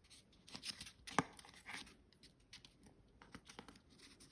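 Wallpaper being cut and folded over the edges of a light switch plate: faint rustling and crinkling of paper with scattered small clicks, the sharpest about a second in.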